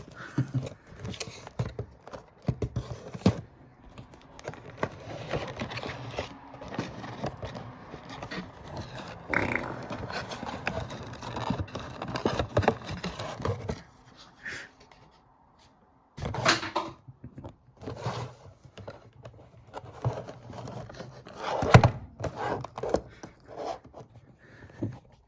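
Cardboard box and plastic packaging being handled as a diecast model bus is worked out of its box: scraping, rustling and small knocks, with a lull about halfway and a few sharper thunks after it.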